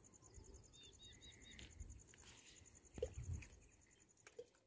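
Faint evening pond-side ambience: a steady, rapidly pulsing insect trill, like crickets, with a few short bird chirps about a second in. There is a soft knock about three seconds in.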